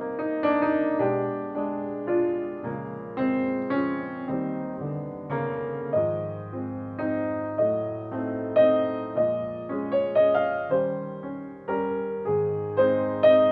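Solo piano music: an even succession of notes and chords struck about twice a second, each ringing and fading before the next.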